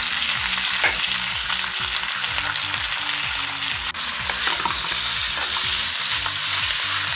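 Romaine lettuce and garlic sizzling in hot oil in a nonstick wok while a wooden spatula tosses and stirs them, with a few scraping strokes against the pan.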